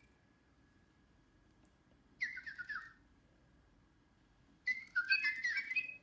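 Little Live Pets Tweet Talking toy bird chirping electronically: two bursts of quick rising and falling tweets, a short one about two seconds in and a longer one near the end.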